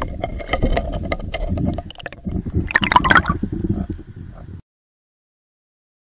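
Water gurgling and splashing around a hooked roach as it is pulled up to the surface, heard through an underwater camera, with a louder splash about three seconds in. The sound then cuts off suddenly.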